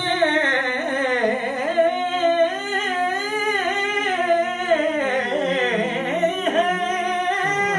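A man singing a naat solo, with no accompaniment, drawing out one long wavering melismatic phrase with no clear words. The voice stays unbroken until near the end.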